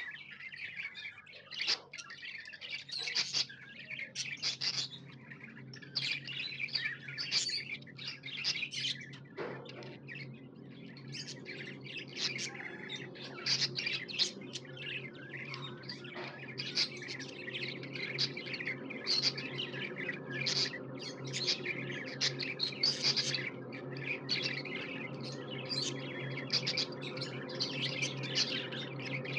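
Pet budgerigar chirping and chattering in a continuous run of short, quick high calls, over a steady low hum.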